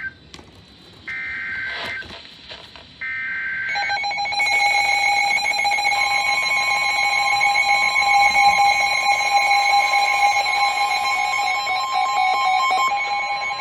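Emergency Alert System signal from a NOAA Weather Radio broadcast: two short screeching bursts of digital SAME header data, then a loud, steady alert tone, joined by a second, higher tone a couple of seconds later, running about ten seconds and cutting off near the end. It marks the start of a new severe thunderstorm warning.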